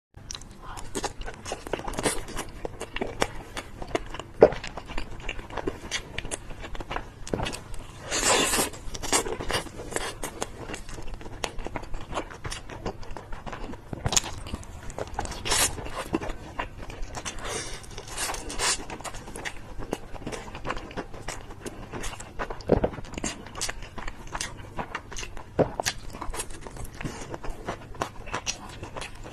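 Close-miked mouth sounds of someone eating chicken on sticks: repeated biting and chewing, heard as many short clicks, with a few longer, louder bites.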